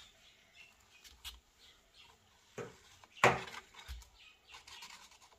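Light handling of a template on a laminate floor: a few soft knocks and one sharp click a little past three seconds in, then a marker pen scratching along the floor as it traces an outline.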